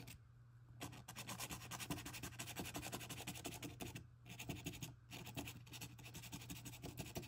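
Felt-tip marker scribbling on a small textured canvas, faint quick back-and-forth colouring strokes that break off briefly about four seconds and five seconds in.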